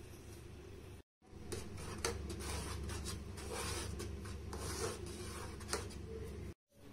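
A steel spoon stirring boiling mango jam in an aluminium pot, scraping against the pot in irregular rasping strokes over a steady low hum.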